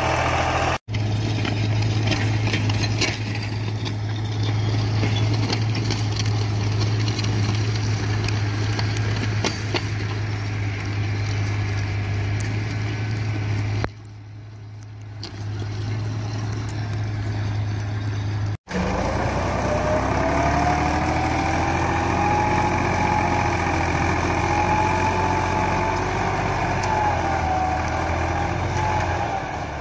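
Farm tractor engine running steadily while pulling a plough through the soil. It is broken by short cuts. After the second cut, in the last third, a wavering whine rides over the engine hum.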